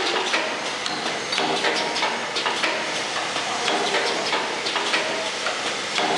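Clothes peg assembling machine running: a dense, steady mechanical clatter, its vibratory bowl feeders rattling parts along over a continuous hiss, with many sharp clicks and clacks of the assembly mechanism several times a second.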